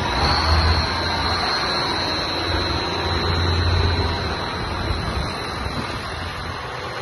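Diesel tractor engines running as a procession of tractors drives past: a deep rumble that swells twice and eases off near the end, with a thin steady high tone over it.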